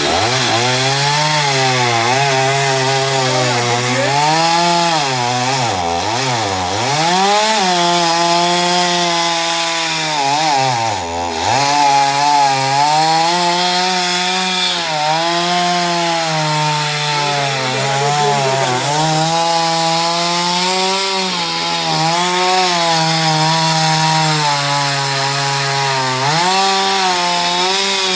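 Chainsaw running and cutting through mango wood. Its engine note drops sharply several times as it bogs in the cut, then climbs back up.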